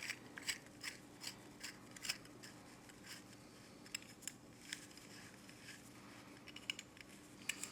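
Faint, irregular small clicks and light taps of metal fireplace tool pieces being handled and fitted together, several a second at first and sparser later.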